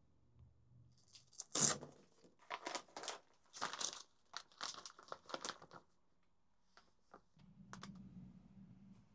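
Clear plastic packaging bag crinkling and rustling in a run of crackly bursts as it is handled, loudest about a second and a half in. A few sharp clicks follow, then a low steady hum starts about seven seconds in.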